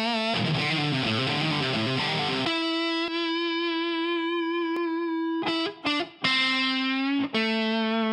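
Title music on distorted electric guitar: a run of quick notes for about two and a half seconds, then long held notes, broken by short gaps near the end.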